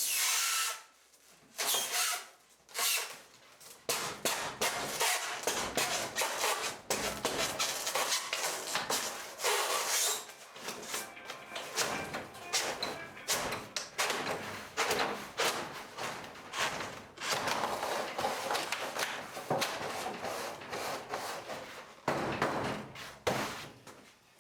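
Garage door insulation insert scraping and rubbing against the door section as it is worked in, with irregular knocks as it is pounded into the stile.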